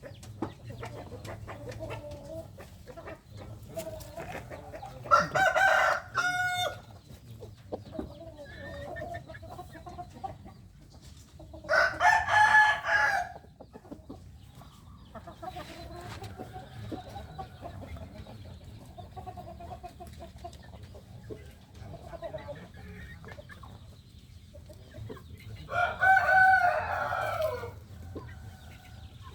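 A Bangkok game rooster, recovering from a respiratory illness, crows three times, each crow about a second and a half long and the loudest sound here. Softer clucking runs between the crows.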